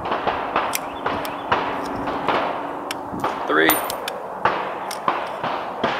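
Irregular metallic clicks and knocks from an M1895 Nagant revolver being unloaded: the cylinder is turned and the ejector rod pushes the spent cases out one at a time.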